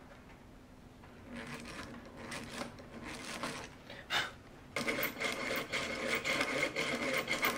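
Eggbeater hand drill being cranked to bore a screw pilot hole in wood: the gears whirr while the bit rasps into the wood, uneven at first, then steadier and louder from about five seconds in.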